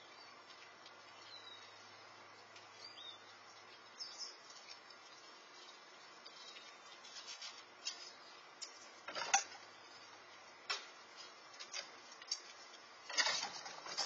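Quiet outdoor ambience with a steady hiss and two faint bird chirps in the first three seconds, plus scattered short crackles and scrapes, the loudest about nine and thirteen seconds in.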